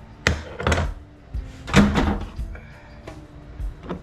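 Background music with a few sharp knocks and clatters of parts being handled and set down on a workbench.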